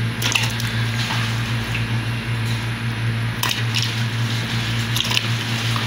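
Pieces of beef trotter dropped by hand into a metal pot of hot water, with a few short splashes and knocks, over a steady hiss and low hum.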